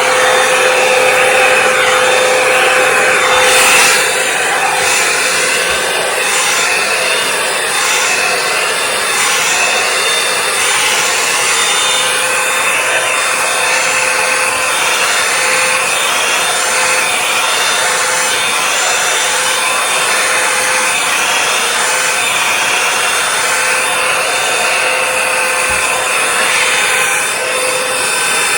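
Revlon One Step hair dryer brush running on its high setting: a loud, steady rush of air with a thin whine. The sound wavers as the brush is drawn through the hair.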